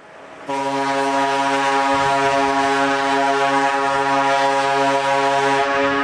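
Passenger ship's horn sounding one long, steady blast, starting about half a second in. Its deepest tone cuts out near the end while the higher tones carry on.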